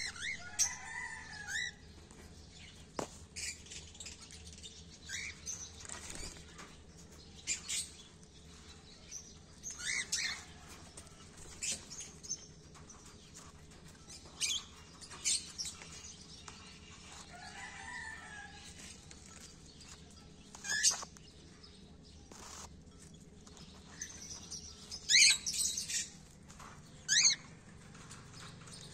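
Cockatiels chirping and calling on and off: short, sharp chirps, a few longer curving calls, and scattered small clicks or rustles. The loudest calls come near the end.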